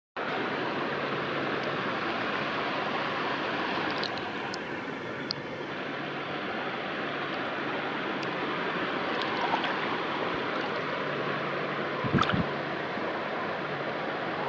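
Steady rush of flowing river water, with a few small clicks and a louder knock about twelve seconds in.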